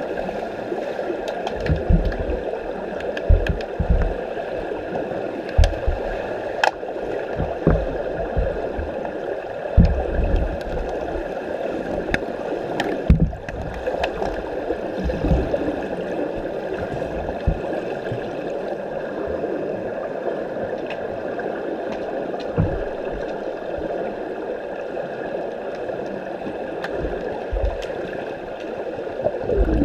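Underwater sound of a pool during play, picked up by a submerged camera: a steady rushing hiss of churned water with irregular low thumps and a few sharp clicks.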